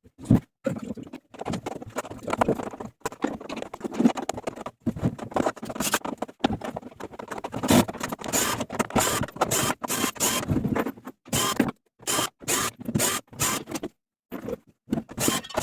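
Irregular scraping, clicking and knocking of tools and parts being worked by hand, broken by short gaps.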